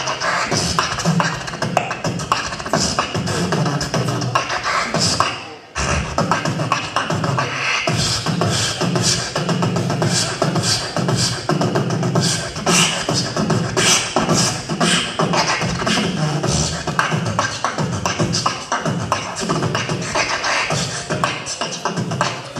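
Human beatboxing into a handheld microphone and played through stage speakers: a fast, dense rhythm of drum-like beats made with the mouth, low thumps under hissing high ticks, with a short break about five and a half seconds in.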